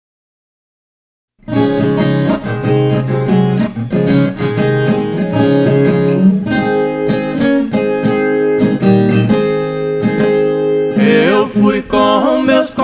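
Silence for about a second and a half, then a caipira song starts: a viola caipira picks the intro, and a singing voice comes in near the end.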